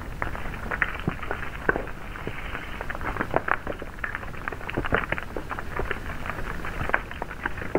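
Dense, irregular crackling: many small sharp clicks and ticks at uneven intervals, with no steady rhythm.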